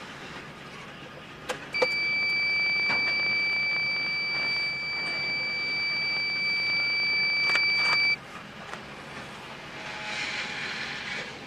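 A steady high electronic beep, one unwavering tone held for about six seconds that starts and cuts off abruptly, over the fainter rolling noise of loaded freight hopper cars passing.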